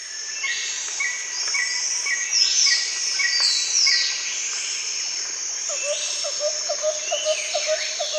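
Birds calling and chirping, with quick falling whistles, over a steady high insect drone. About six seconds in, a lower call starts repeating about four times a second.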